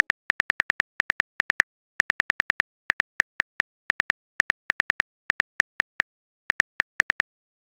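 Phone keyboard typing sound effect: short, sharp key taps in irregular bursts of a few clicks, with brief pauses between bursts.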